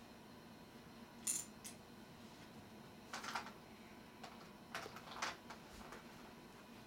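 Faint light clicks and taps of tiny toy pieces, the miniature cans and lids of a Sylvanian Families nurse set, being handled: one about a second in, a couple around three seconds, and several around five seconds.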